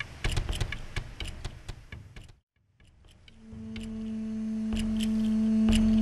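Background music: a ticking beat of about four clicks a second fades out and cuts to a brief silence. A new track then fades in with a sustained low note and light percussive ticks.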